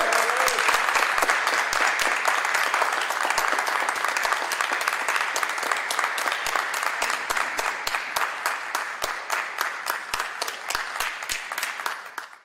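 Audience applauding for a graduate crossing the stage with her diploma. The dense clapping slowly thins into scattered individual claps and dies away near the end.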